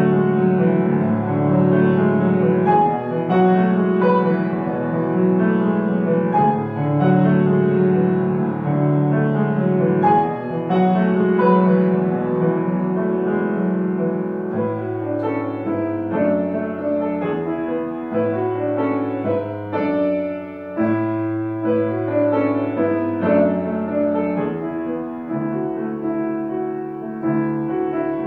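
Grand piano played solo, a continuous piece of chords over a moving bass, with the bass dropping lower about halfway through.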